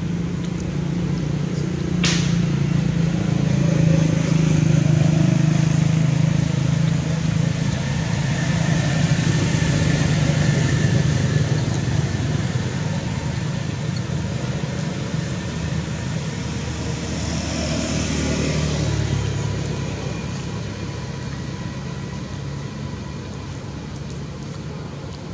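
A low, steady engine drone, swelling over the first few seconds and fading away after about three-quarters of the way through, as from a passing motor vehicle. A single sharp click about two seconds in.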